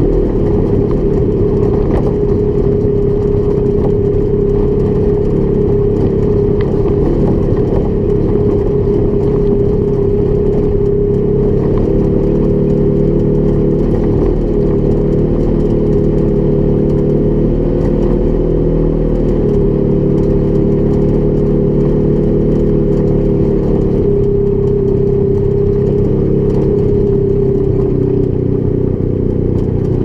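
Polaris XP 1000 UTV's twin-cylinder engine running steadily while driven, its pitch stepping up and down slightly several times.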